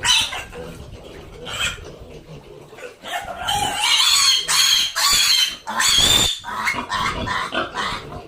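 Pig squealing: a run of loud, shrill squeals from about three seconds in, with weaker calls before and after.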